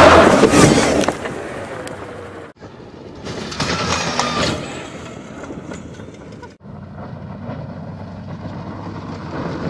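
Electric Baja Bug off-road race car driving over rough ground: tyre, dirt and chassis rattle noise with no engine note and only a faint motor whine. The noise swells loudly twice, at the start and about four seconds in, and breaks off suddenly twice between clips.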